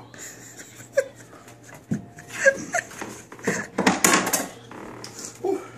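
Short, irregular bursts of non-speech vocal sound, some breathy and some with pitch, the loudest cluster in the middle.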